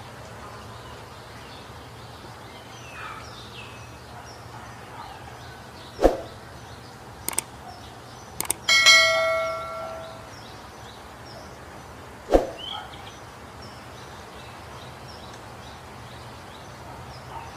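A single bell-like ding that rings out for about a second and a half, about nine seconds in, set among a few sharp knocks and faint small chirps over a low steady hum.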